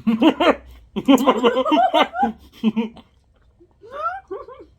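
A person laughing in quick, repeated voiced pulses, in two loud spells, then a few short rising vocal glides near the end.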